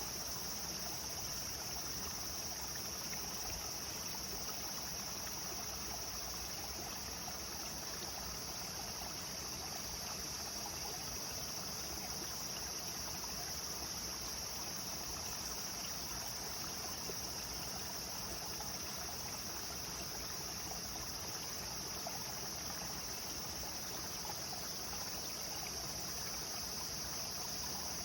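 River water flowing steadily, with a constant high-pitched drone of insects over it.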